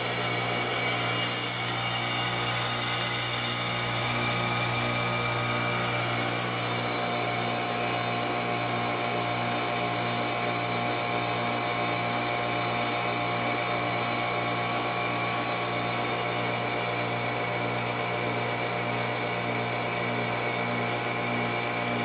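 Trane XL14 heat pump's scroll compressor running in defrost (cooling mode) with the outdoor fan off: a steady hum over a broad hiss.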